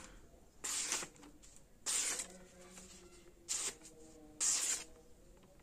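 A freshly sharpened machete blade forged from bearing steel slicing through a hand-held sheet of paper in four short strokes, about a second apart. This is a paper-cutting sharpness test.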